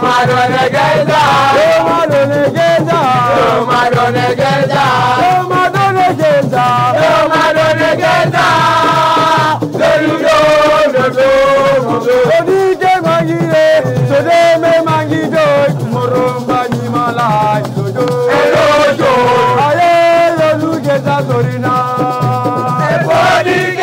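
Voices singing a chant together over fast percussion with a rattle shaking along.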